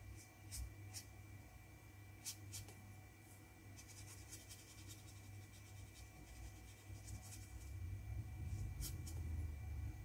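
Faint strokes of a watercolour brush brushing across textured watercolour paper, short scrapes scattered through, densest in the middle. A low hum grows louder near the end, with a faint steady high whine underneath.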